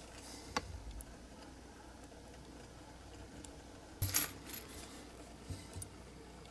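Light clicks of a small diecast model's metal baseplate, wheels and a pair of pliers being handled: one sharp click about half a second in, a brief clatter about four seconds in, and two small clicks near the end.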